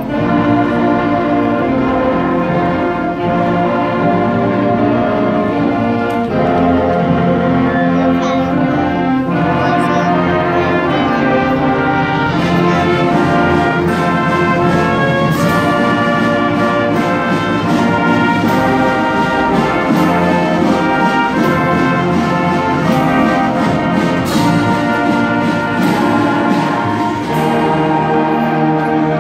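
Large school concert band of flutes, saxophones and brass playing a piece together, held notes and chords moving in steps, with the brass prominent.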